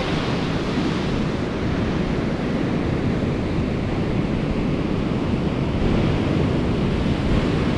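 Surf breaking steadily on a sandy beach, with wind buffeting the microphone.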